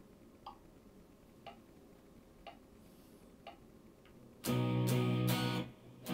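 Four metronome clicks, one a second, counting in, then a Fender electric guitar strumming a B major bar chord from about four and a half seconds in, the start of a chord loop being recorded.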